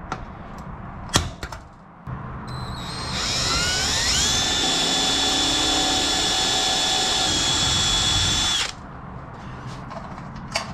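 A sharp snap of a center punch about a second in. Then a drill spins up with a rising whine and runs steadily for about six seconds, boring a hole through the aluminium wing spar, before cutting off suddenly.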